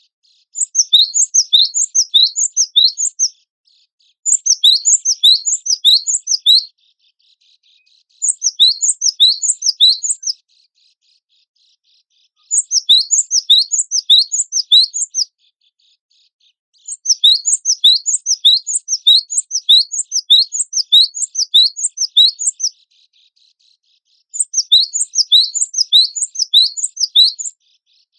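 Cinereous tit (gelatik batu) singing in six runs of rapid high notes, each run lasting two to six seconds. Between the runs there are short silent gaps.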